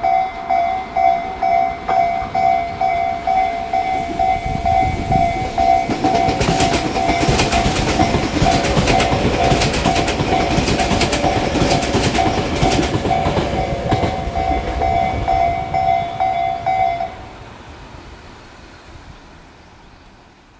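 Japanese level-crossing electronic warning bell (Tobu type C) sounding in a steady pulsing tone while a Tobu 200 series limited express electric train passes over the crossing. The wheels rumble and clack over the rail joints, loudest in the middle. The bell stops about 17 seconds in, leaving the fading rumble of the departing train.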